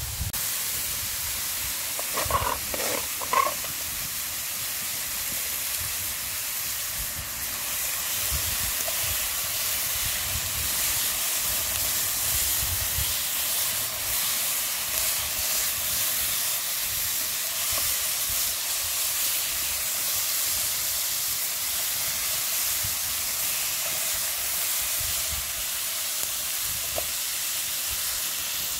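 Chicken, onions and red peppers sizzling steadily in a GSI Pinnacle non-stick frying pan over a twig fire in a Lixada folding wood stove. A few short louder sounds come about two to three seconds in.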